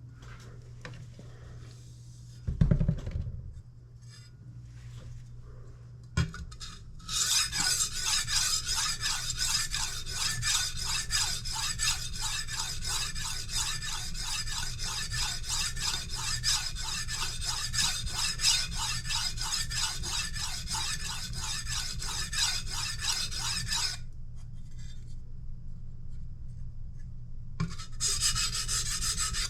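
Kitchen knife blade being stroked back and forth on a sharpening stone: a long run of rapid, even scraping strokes, a few seconds' pause, then more strokes near the end. A single thump comes about two and a half seconds in, before the sharpening starts.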